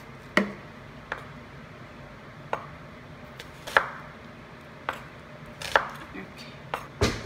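Knife chopping an onion on a wooden end-grain cutting board: about eight separate, unevenly spaced knocks of the blade on the wood, roughly a second apart. Underneath runs the steady hum of a kitchen range vent fan.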